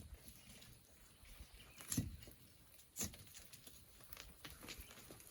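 Hand tools digging into a cliff of loose volcanic black sand: a few sharp knocks, one at the start, the loudest about two seconds in and another a second later, with faint patter of falling grains and small stones between them.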